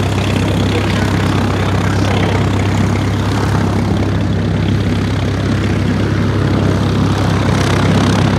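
Bücker Bestmann light aircraft flying past, its single piston engine and propeller running steadily with a constant low hum.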